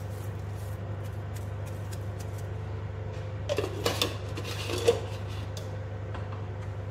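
Kitchen utensils clinking a few times around the middle, a metal spoon knocking against the pot or spice dish while crushed dried coriander is added, over a steady low hum.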